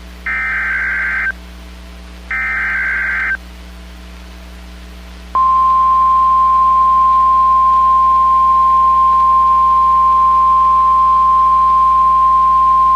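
Emergency alert SAME header: the last two of three one-second screeching data bursts, a second apart. About five seconds in, the steady 1050 Hz weather alert tone starts. Together they mark the start of a new warning.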